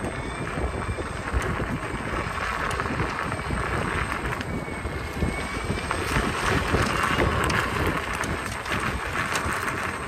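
Wind rushing over the microphone and tyres rolling on a loose gravel track while riding electric unicycles, with many small gravel clicks and crunches.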